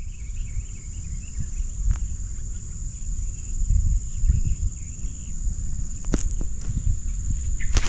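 Crickets or similar insects trilling in one steady high-pitched drone over a low rumble, with a couple of sharp clicks near the end.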